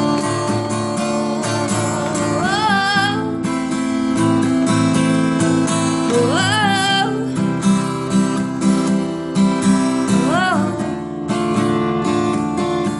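Instrumental break of a pop song: strummed acoustic guitar chords with a steady bass pulse. Three short sliding, wavering melody notes rise over the chords, a few seconds apart.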